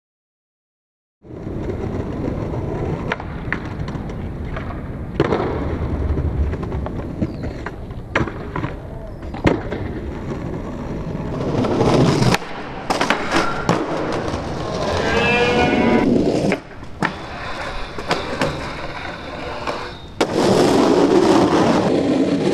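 Skateboard wheels rolling on concrete, setting in after about a second of silence, with several sharp clacks from the board's pops and landings.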